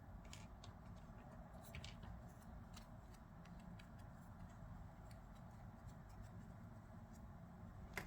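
Near silence, broken by a few faint, scattered clicks of small 3D-printed plastic model parts being handled and fitted together; the loudest comes near the end.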